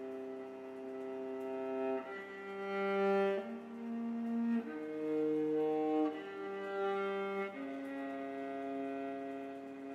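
Slow instrumental background music of long held notes, the pitch changing several times through the middle, about every second or so.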